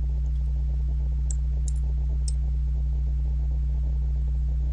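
Steady electrical mains hum on the recording, with three light clicks between about one and two and a half seconds in.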